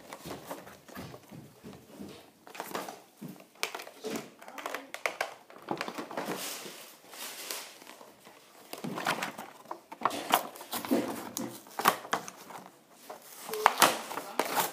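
A Hot Wheels five-pack's cardboard and plastic packaging being torn and crinkled open by hand, in irregular rustles and rips.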